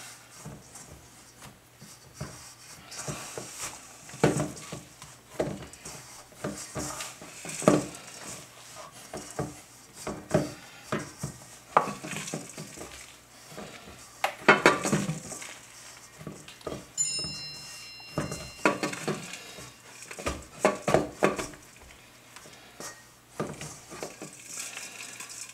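Hands pressing and kneading crumbly scone dough in a stainless steel mixing bowl: irregular knocks and thumps as the bowl is pushed and jolted, some with a short metallic ring.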